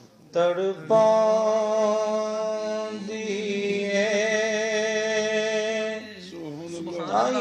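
A single voice singing a Punjabi naat, a devotional song in praise of the Prophet. After a brief pause at the start it draws out long held notes with a wavering vibrato, then glides upward near the end.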